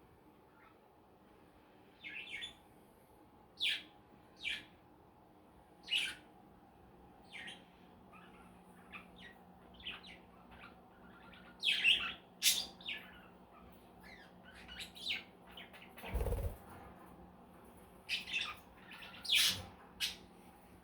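Pet budgerigars chirping: short, scattered chirps, some in quick clusters, with one brief low thump about three-quarters of the way through.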